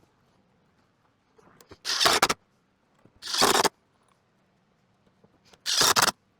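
Three short rasping scrapes, each about half a second long, with one to two seconds of quiet between them.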